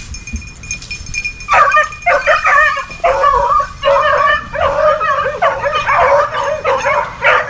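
A young rabbit-hunting puppy opening on a rabbit: high-pitched yips and bays, repeated almost without a break, starting about a second and a half in. A pup giving voice like this on the chase shows it is opening.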